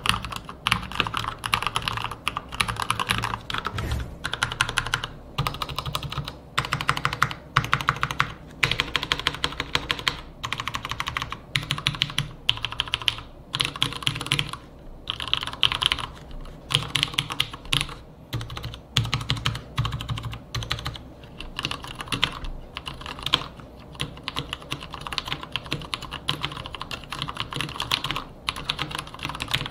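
Fast typing on hand-lubed Marspro mechanical keyboards with Cherry switches, a dense run of key strokes with a few short pauses. The first few seconds are Cherry MX Speed Silver linear switches; the rest is Cherry MX Brown tactile switches.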